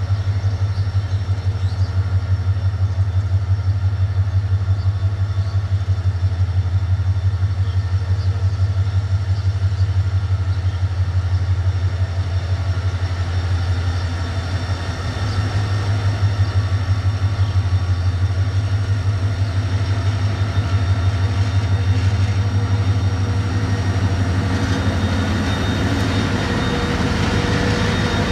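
Metre-gauge diesel locomotive's engine running at a steady, fast low throb as it hauls the express out of the station. Near the end the locomotive and its coaches roll past close by.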